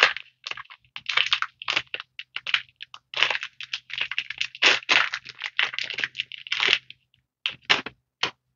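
Foil wrapper of a Magic: The Gathering collector booster pack crinkling in quick, irregular bursts as it is torn open and peeled back by hand; the crinkling stops shortly before the end.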